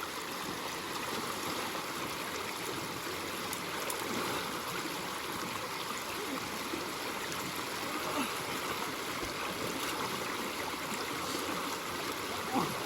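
River water running steadily, an even rush of moving current.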